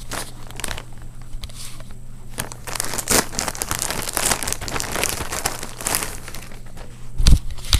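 White plastic mailer bag crinkling and rustling in irregular bursts as it is handled and opened, with a low thump near the end.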